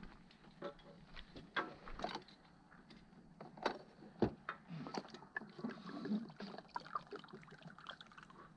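Scattered clicks and knocks of equipment and tools being handled, irregular and unhurried, with two sharper knocks around the middle.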